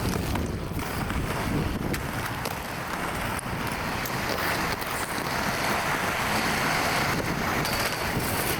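Wind buffeting the microphone: a steady rumble and hiss with a few faint clicks.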